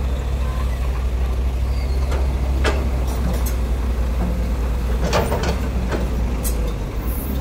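Large crawler excavator's diesel engine running steadily under working load, with the bucket scraping and knocking against broken asphalt and rubble a few times, loudest about five seconds in.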